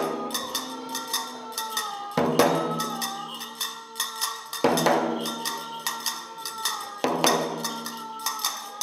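Japanese gagaku-style music: a held, slowly bending melodic line over a sustained drone, with a large rope-laced Japanese drum struck about every two and a half seconds and quick, light clicking percussion in between.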